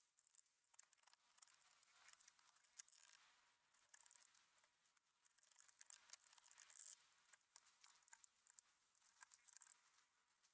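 Typing on a mechanical keyboard fitted with non-lubed Akko Lavender Purple tactile switches and PBT XDA keycaps: quick, faint runs of keystroke clicks with a couple of short pauses.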